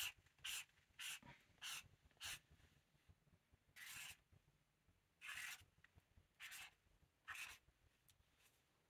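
Black felt-tip marker drawn across paper, its scratching strokes made louder by the pad resting on a hollow cardboard box. About five quick short strokes half a second apart, then four longer, slower strokes.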